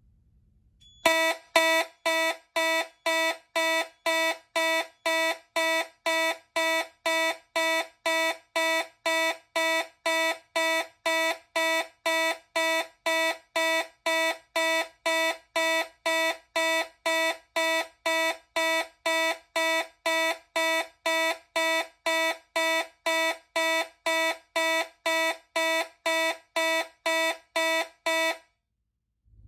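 Simplex 2903-9002 fire alarm horn sounding in steady pulses, about two blasts a second, each a harsh, buzzy tone rich in overtones. It starts about a second in and cuts off about a second before the end.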